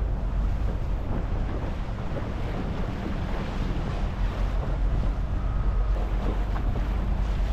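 A small tour boat under way on the sea: a steady low rumble with water washing around the hull and wind buffeting the microphone.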